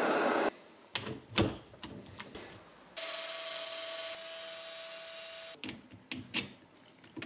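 Gas torch hissing, cut off abruptly about half a second in, then a few sharp metal clinks. From about three seconds in, a disc grinder runs against a steel shaft for about two and a half seconds: a steady hiss with one held tone. After that come more light metal clinks and knocks as the parts are handled.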